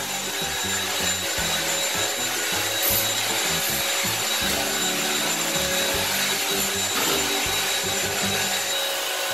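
Corded Bissell wet-dry floor vacuum running steadily as it is pushed over the floor, an even whirring hiss.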